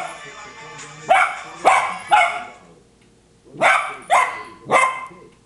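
Cocker spaniel puppy barking: six sharp barks in two quick bursts of three, the second burst starting about halfway through.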